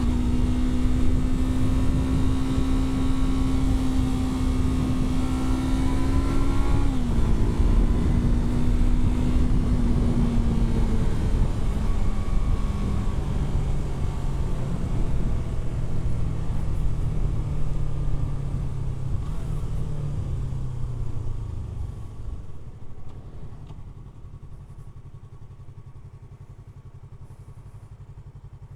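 Yamaha R3's parallel-twin engine under way: a shift right at the start, a steady pull, a brief rev and another shift about a quarter of the way in, then the engine note sinking as the bike slows. About three quarters of the way through it settles to a much quieter, steady idle.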